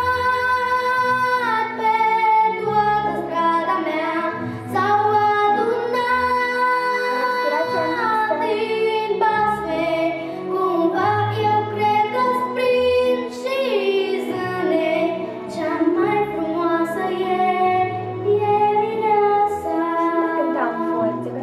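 A young girl singing a song into a handheld microphone, holding long notes over a backing track with steady low accompaniment notes.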